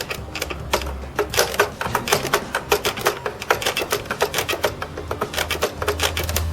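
Rapid, irregular clicking and clacking, several clicks a second, as a Commodore 64's power switch is flicked off and on and its DIN power plug is worked in and out of the socket over and over, working contact cleaner into dirty contacts that were causing a low 4.7 V supply.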